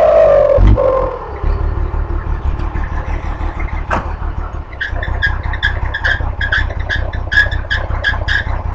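Vehicle engine revs falling off, with a thump just under a second in, then settling into a pulsing low idle rumble. From about five seconds in, short high chirps repeat several times a second over the idle.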